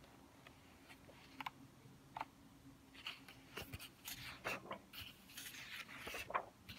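Paper pages of a softcover workbook being turned by hand. A couple of faint ticks come first, then a run of rustling page flips from about three seconds in.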